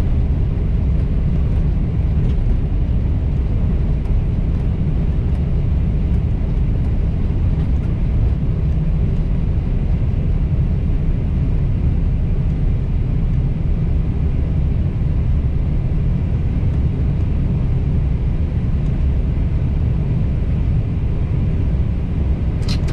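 Steady low rumble inside an Airbus A320 cockpit as the airliner rolls down the runway after landing, with a brief click near the end.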